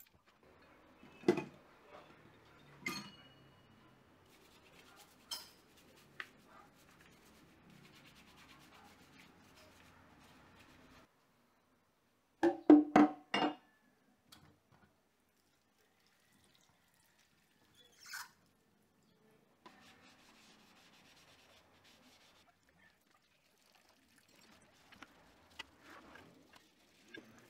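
Metal bike parts, a chainring and crank among small hardware, clinking and knocking against each other and a plastic basket as they are handled during cleaning. Scattered single clacks, with a quick run of four loud clanks about halfway through.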